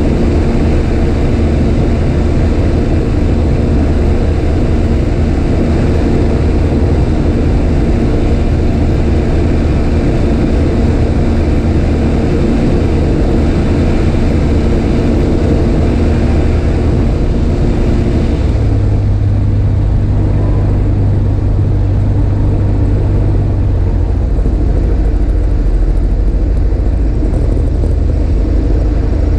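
Evektor EV97 Eurostar light aircraft's engine and propeller running steadily on final approach, heard from the cockpit with wind noise. About two-thirds of the way through, the engine note drops and the hiss fades as power comes back for the landing.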